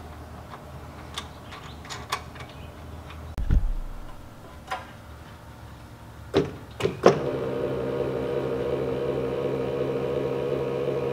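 Light clicks and knocks of metal hardware being handled, with a thud about three and a half seconds in. From about seven seconds in comes the steady electric hum of a linear actuator, salvaged from a medical device, running to move a DR Power Wagon's dump tub.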